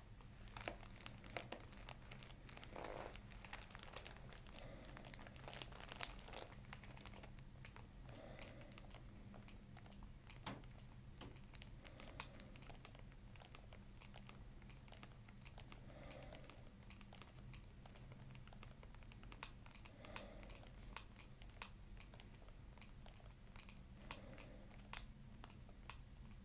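Faint crinkling of a paper headrest cover and hair under fingers holding the head at the base of the skull, with scattered small clicks, soft slow breaths about every four seconds and a steady low room hum.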